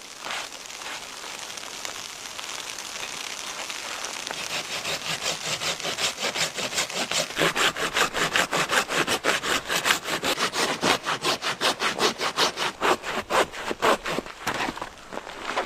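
Hand saw cutting through wood, a rapid back-and-forth scraping that builds up after a few seconds to about five strokes a second, then slows to a few separate strokes near the end.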